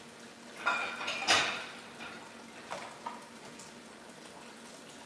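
Dishes and kitchen utensils being handled at a sink. A metallic clatter with a ringing tone comes about a second in, followed by a few light knocks.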